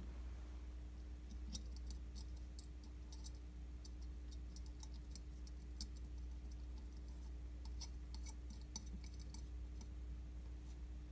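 Faint, scattered light clicks and ticks of small metal carburetor parts being handled and fitted by hand, in two bunches, over a steady low hum.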